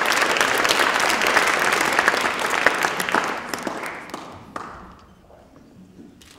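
Audience applauding, steady at first and dying away over the last few seconds.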